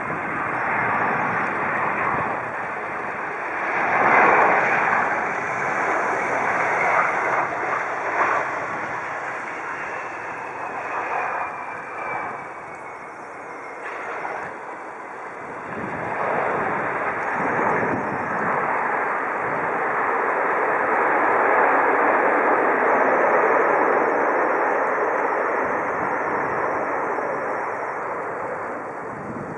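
Airbus A319 jet landing: steady engine noise as it comes in low on final approach, with a faint falling whine, then a louder, long rush of engine noise while it rolls out along the runway.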